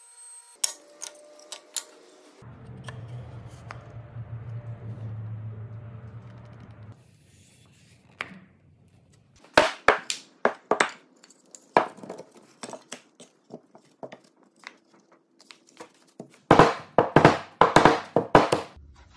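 Wooden boards knocking and clacking against each other as cut pieces are handled and their bridle joints are pushed together into a square frame, with a dense run of loud knocks near the end. A low steady hum lasts several seconds after the first few clicks.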